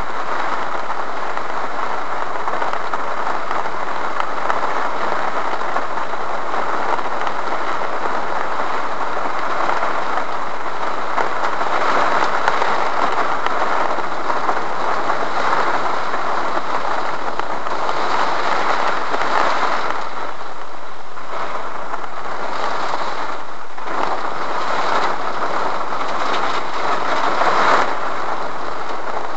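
Heavy rain falling on a stopped car's roof and windshield, heard from inside the cabin as a loud, steady hiss that eases briefly a few times in the second half.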